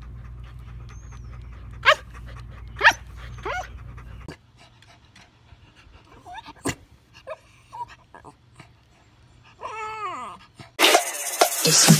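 Bernese mountain dog puppy giving three short, high barks, then a Yorkshire terrier letting out a whine that falls in pitch. Loud electronic music starts near the end.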